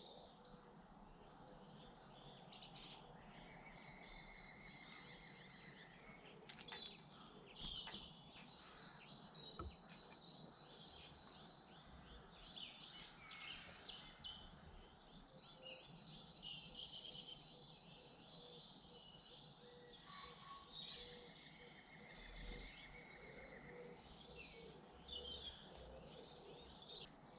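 Garden songbirds chirping and twittering, several birds overlapping in quick high notes, with a short steady trill twice. Faint, over a low background hum.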